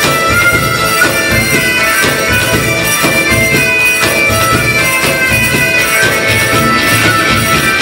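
Recorded bagpipe music over a steady drum beat, the pipes playing a melody in long held notes.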